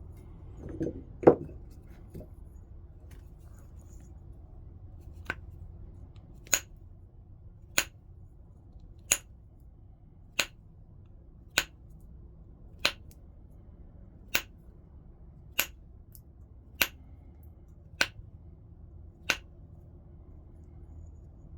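Flintknapping: stone being worked with a knapping tool, with a heavier knock about a second in, then twelve sharp clicks at an even pace of about one every second and a quarter as small flakes snap off the stone's edge.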